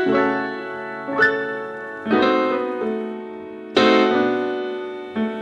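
Background piano music: slow sustained chords struck every second or two, each ringing and fading.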